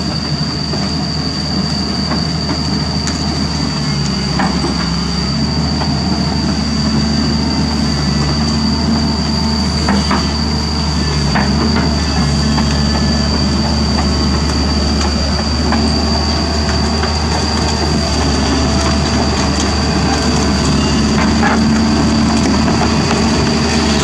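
Doosan DX225LC crawler excavator's diesel engine and hydraulics running steadily under load, with a constant high whine over the engine note and scattered light metallic clanks.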